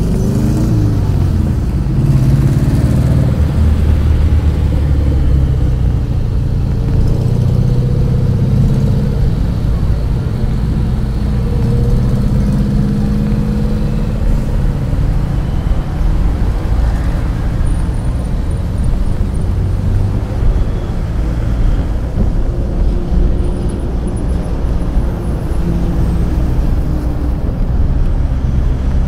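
A vehicle's engine and road noise while driving through traffic: a steady low rumble, with the engine's pitch rising and falling as it speeds up and slows.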